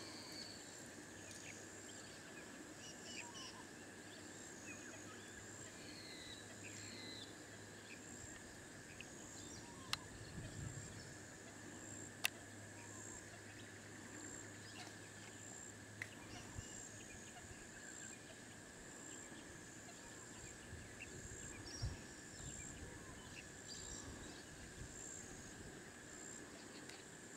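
Quiet riverside bush ambience: a steady, faintly pulsing high insect drone, with scattered short bird chirps and a couple of sharp clicks about ten and twelve seconds in.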